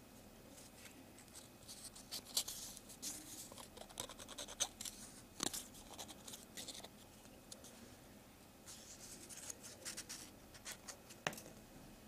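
Faint, scattered clicks and scratchy rustles of a homemade Rubik's cube's small pieces being pulled out and pressed back into place by hand. They come in two busy bursts with a quieter stretch between, and the sharpest click falls near the end.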